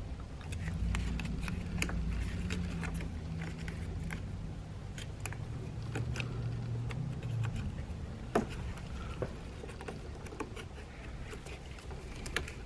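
Small scattered clicks and plastic rattles of hands working the hood latch release cable free of its clips, over a low steady hum, with one sharper click about eight seconds in.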